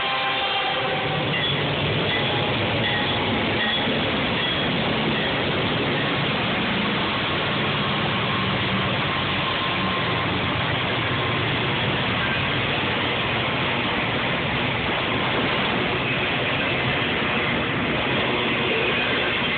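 Freight train passing close by: the last of the diesel locomotive's horn cuts off within the first second. A low engine rumble follows, then the steady rolling noise of autorack cars on the rails.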